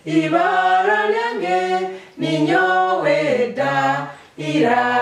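A small group of adult voices, a man's and women's, singing a letter-sound song unaccompanied in Runyoro-Rutoro. The song comes in three phrases of held notes, with short breaks about two seconds in and again near the end.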